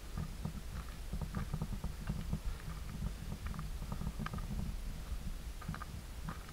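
Footsteps crunching and crackling over dry leaf litter and loose stones on a forest path, over a constant low rumble.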